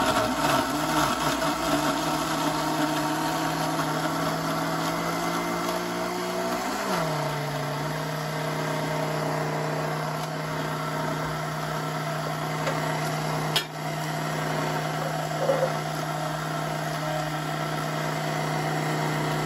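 Red Black+Decker countertop blender running on its low setting, blending papaya, crushed ice and milk into juice: a steady motor hum whose pitch drops slightly about seven seconds in as the motor settles under the load. A brief knock about thirteen and a half seconds in.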